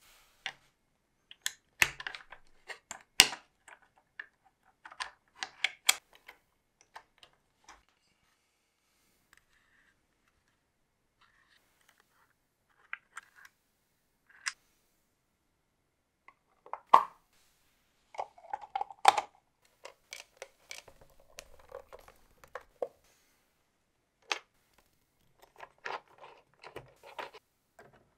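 Small plastic model-kit parts clicking and tapping as gears and shafts are handled and fitted together, in irregular flurries of sharp clicks with a quiet stretch in the middle.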